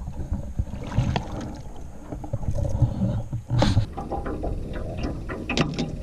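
Water splashing as a largemouth bass thrashes in a landing net, then knocks and clatter as the net and fish are handled on the boat deck, the loudest knock about three and a half seconds in, over a steady low rumble.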